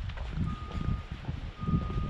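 Wind buffeting the microphone in uneven gusts, with a faint high beep repeating about once a second, each beep about half a second long.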